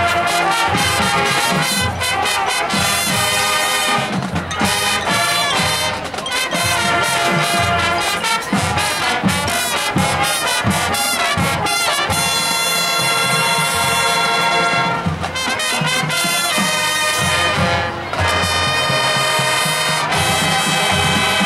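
High school marching band playing loudly: trumpets, trombones and sousaphones over drums and pit percussion, with long held brass chords in the second half.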